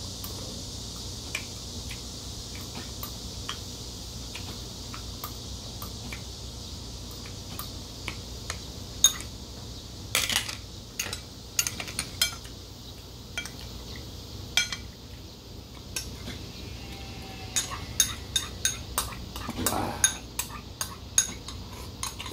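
Metal chopsticks clicking against a ceramic bowl and dishes while eating, in scattered sharp clinks that come sparsely at first and much more often through the second half.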